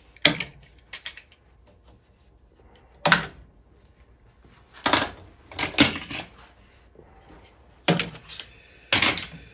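One-handed quick-release bar clamps being released and taken off a glued-up wooden leg: a string of sharp plastic-and-metal clacks, about eight, unevenly spaced.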